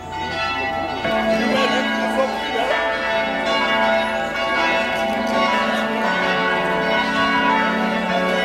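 Church tower bells pealing, several bells ringing together in overlapping strokes, swelling and getting louder about a second in.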